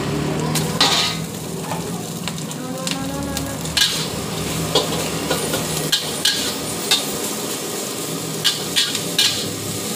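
Rice frying and sizzling in a large steel wok while a long-handled metal spatula stirs and scrapes it, with sharp metal-on-metal clanks every second or so.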